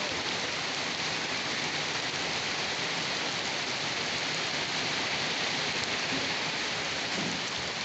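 Steady rain falling, an even hiss of many drops with no let-up.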